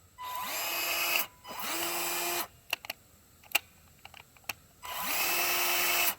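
Battery-powered drill run in three short bursts, its motor spinning up quickly to a steady whine each time, with a few clicks in between.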